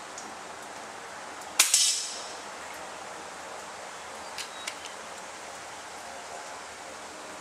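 A single shot from an FX Bobcat .22 PCP air rifle: one sharp crack with a short decaying tail about a second and a half in. It is followed a few seconds later by two light clicks.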